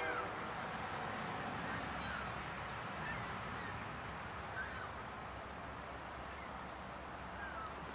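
A diesel locomotive's multi-chime air horn chord cuts off just after the start, leaving steady outdoor background noise with a few short, faint falling calls.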